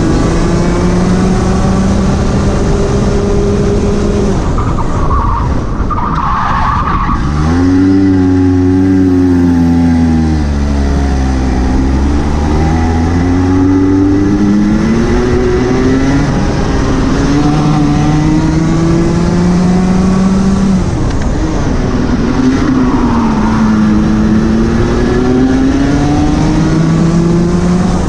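Rotax 125 Junior Max Evo single-cylinder two-stroke kart engine at racing pace, its revs climbing and falling again and again, with one sharp drop to low revs about seven seconds in. Tyres squeal briefly in a couple of places.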